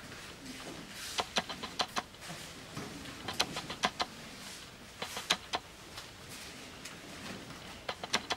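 Crisp snaps from a taekwondo uniform as a student performs a form, the fabric cracking with each punch and block, in quick groups of two to four over a quiet room.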